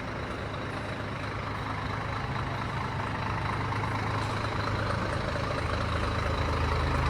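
Scania G420 truck's inline-six diesel idling through a newly fitted dual-tip exhaust. A steady low note grows gradually louder.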